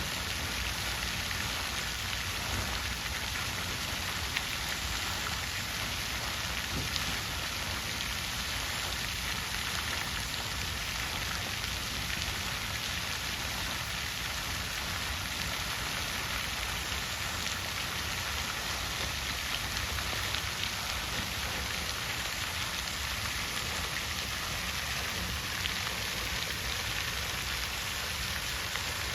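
Water fountain splashing steadily: a continuous, even hiss of falling water.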